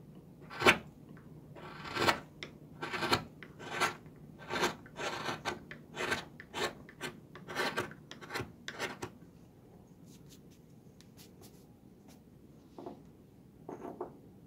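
Carving knife paring shavings from the base of a small wooden block by hand: a dozen or so short scraping cuts, roughly one a second, then the cutting stops, and a few soft knocks come near the end. The cuts take down the high spots of the base so the block will stand level without rocking.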